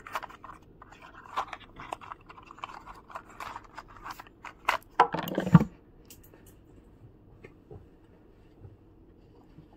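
Cardboard packaging handled by hand: irregular rustling, scraping and light clicks of card being picked up and moved, with a louder scrape and knock about five seconds in as a piece is set down. The handling dies away about six seconds in.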